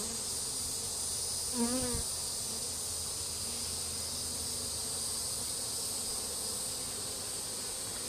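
Honey bees buzzing steadily around an opened hive, over a continuous high-pitched insect chorus. A brief pitched vocal sound comes about two seconds in.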